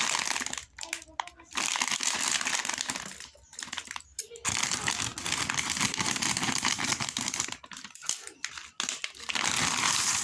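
Plastic snack and candy wrappers crinkling as they are handled and torn open. The crinkling comes in long stretches broken by a few short pauses.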